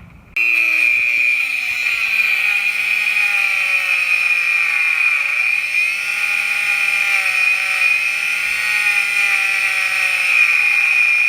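Dremel rotary tool cutting a slot into metal for a seized wheel lock. It makes a loud, steady high whine, and its lower tones sag and recover as the cut loads it.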